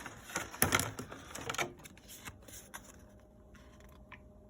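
Packaging being handled: paper and plastic rustling with a quick run of clicks in the first second and a half, then a few faint scattered ticks, as a warranty card is taken out of the package.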